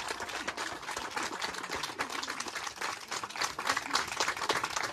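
Audience applause: many hands clapping in a dense, irregular patter.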